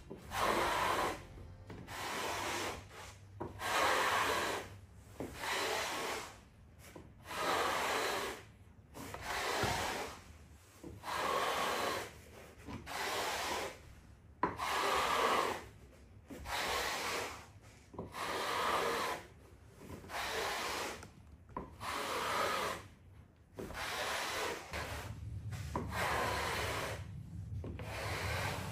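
Rhythmic scraping strokes on wood flooring, one about every second and a half, each lasting under a second, as a tool is worked back and forth across the boards.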